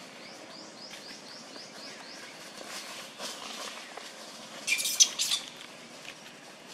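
Wild birds chirping: a quick run of short rising high chirps, about five a second, over the first second and a half. About five seconds in comes a louder brief burst of sharp, high calls.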